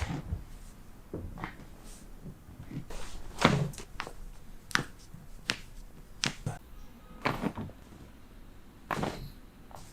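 Chiropractic adjustment: a series of short, sharp knocks, thuds and pops from the treatment table and the patient's joints, the loudest a heavy thud about three and a half seconds in.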